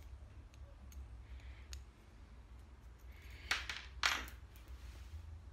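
Small hard metal and plastic jig parts handled and set down on a counter: a few light clicks, then two short clattering knocks about three and a half and four seconds in, over a steady low hum.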